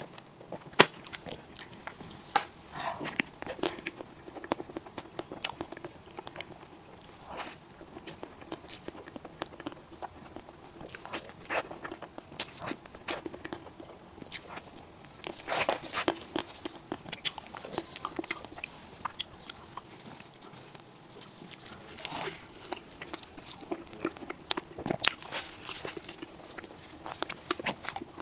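Close-miked eating sounds of a person eating ice cream and soft cake: irregular wet mouth clicks, lip smacks and chewing, with a loud sharp click about a second in.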